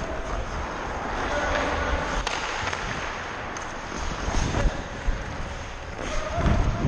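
Ice hockey skates scraping and carving on the ice, heard from a camera worn by a skating player, with wind rushing over the microphone. Several sharp clacks of sticks and puck, the loudest cluster in the second half.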